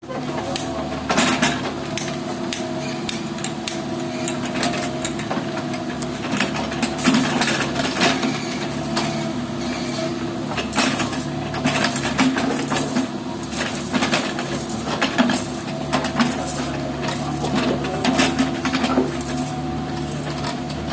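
Excavator engine running steadily, with a wavering hum, under frequent sharp metallic clanks and knocks from the digging.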